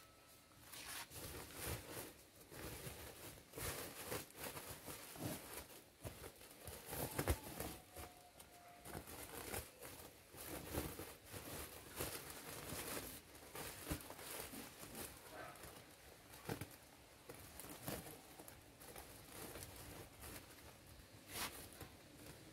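Woven plastic fertilizer sacks rustling and crinkling in irregular scrapes and crackles as the neck of a sack is gathered and tied shut by hand.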